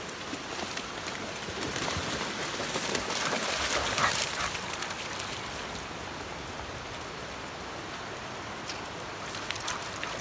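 Rocky creek water rushing steadily, with splashing and pattering that grows louder from about two to five seconds in as dogs play in the shallows.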